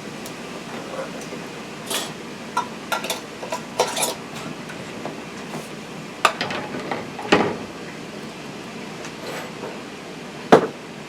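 Kitchen clatter of glass canning jars and metal utensils: a dozen or so separate clinks and knocks at uneven intervals, the sharpest knock near the end.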